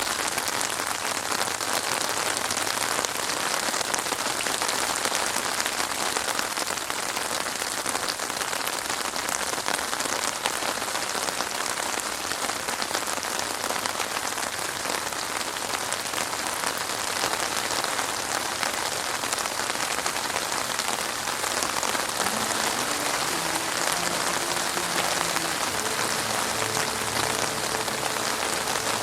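Heavy rain falling steadily on a street, a dense, even hiss with no thunder.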